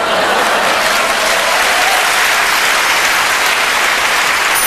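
Theatre audience applauding: dense, steady clapping.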